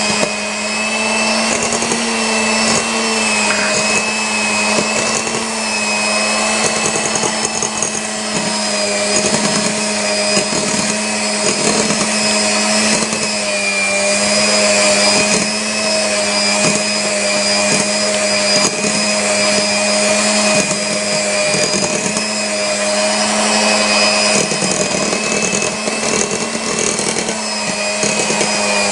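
Maspion electric hand mixer running steadily at one constant pitch, its beaters whirring through thick cake batter in a glass bowl.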